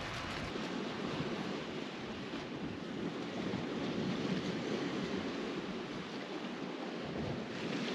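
Sea surf washing on the shore, a steady rush that swells a little midway, with light wind.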